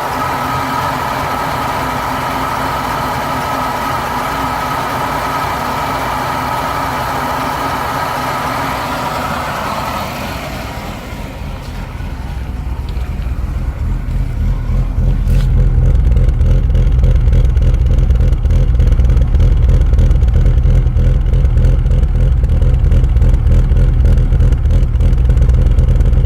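BMW E36 M3's S50B32 3.2-litre straight-six idling roughly with the engine warm, the owner's complaint being a rough idle once oil temperature passes 70°C. About halfway through the sound turns louder and much deeper, a steady pulsing low rumble.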